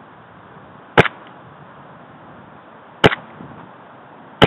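An airsoft gun firing three single shots close to the microphone, each a sharp crack. They come about two seconds apart, then a second and a half apart.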